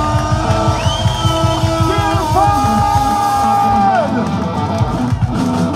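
Live band playing loud music with a steady drumbeat and held instrumental notes, a voice yelling over it.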